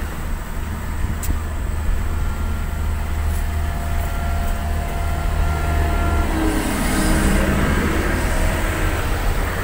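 Four-wheel-drive vehicle driving along, a steady low engine and road rumble.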